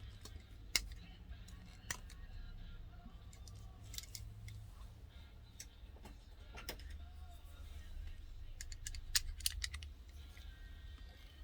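A die-cast model car being handled: scattered sharp clicks and taps, with a quick cluster of clicks about nine seconds in.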